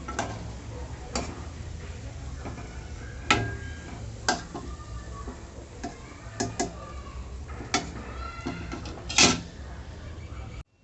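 Metal kitchen utensils clicking and knocking against a pan in irregular sharp taps, with the loudest knock near the end, over a steady low hum.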